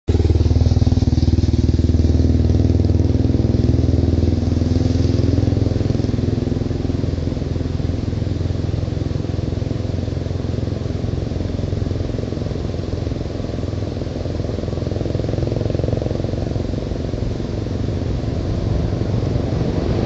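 Road traffic: a motor vehicle's engine with a steady low rumble, loudest in the first few seconds and then easing off.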